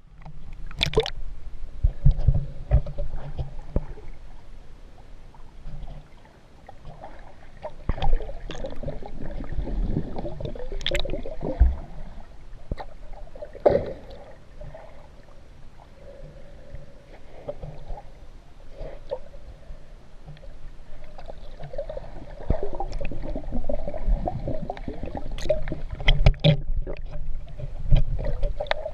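Sea water sloshing and gurgling around a GoPro in its waterproof housing as it dips in and out of the surface and moves underwater, heard muffled, with scattered knocks and clicks against the housing.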